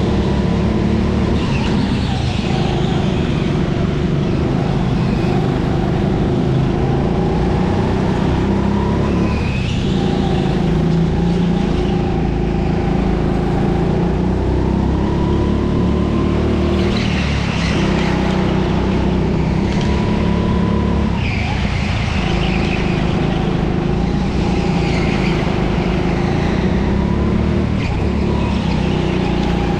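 Racing kart engine running hard on an indoor circuit, its note rising and dipping every few seconds as the throttle is lifted and reapplied through the corners, with tyres squealing briefly in several of the turns.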